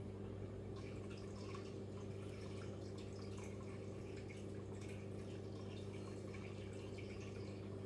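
Faint, scattered light clicks and ticks of small wooden model-kit parts being handled and pressed together by hand, over a steady low electrical hum.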